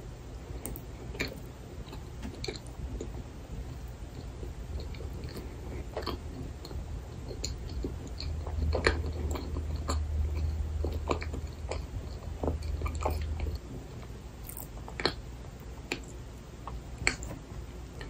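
Close-miked chewing of frozen milk-cream bread: soft mouth clicks and smacks at an irregular pace, with a low hum underneath for a few seconds in the middle.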